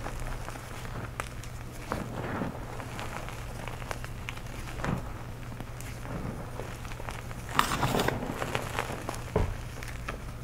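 Hands scooping, squeezing and crumbling dry blue powder with small lumps: irregular soft crunches and powdery rustles, with a louder burst of crunching a little past halfway and a dull thump shortly after. A steady low hum sits underneath.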